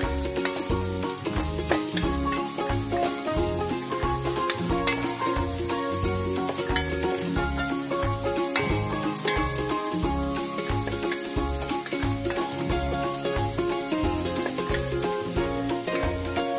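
Sliced red onions sizzling as they sauté in hot oil in a pot, stirred with a wooden spoon, under background music with a steady beat.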